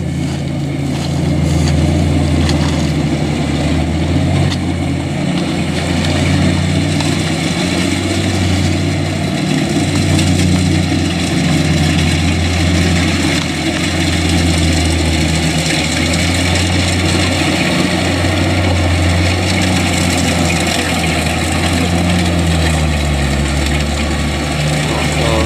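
Kubota DC-70 combine harvester's diesel engine running hard under heavy load, its pitch repeatedly dipping and recovering as the tracked machine struggles through deep mud with the engine close to stalling.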